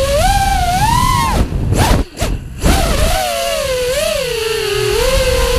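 FPV freestyle quadcopter's brushless motors whining, the pitch rising and falling with the throttle; about two seconds in the throttle is briefly cut and the motor sound nearly drops out before spinning back up, settling to a steadier pitch near the end. Wind and prop wash rumble on the onboard microphone underneath.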